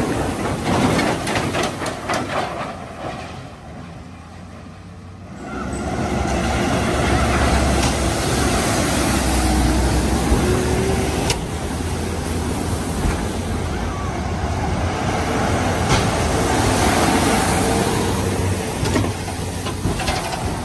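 Tractors driving through a flooded ford: their diesel engines run under a steady rush and splash of water thrown up by the wheels and a loaded bale trailer. The sound drops away a few seconds in, then swells again as the next tractor and trailer come through close by.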